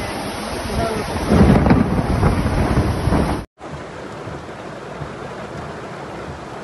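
Heavy rain and floodwater rushing down a street, growing louder and deeper from about a second in. Halfway through it cuts off for a moment and comes back as a steadier, quieter rush of water.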